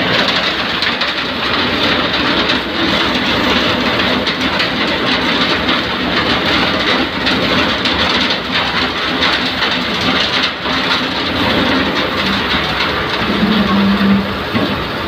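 Concrete batching plant running: a steady, loud rumble and clatter of the aggregate conveyor with a wheel loader's diesel engine, whose drone swells near the end as the loader raises its bucket.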